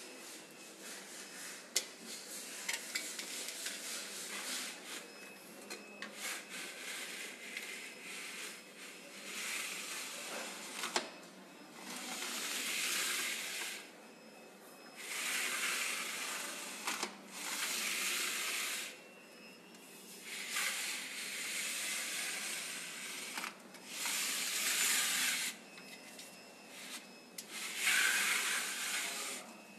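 Sliding mosquito-net screen pushed back and forth along its track: a run of rubbing swishes, each a second or two long, after a stretch of rustling with a few sharp clicks.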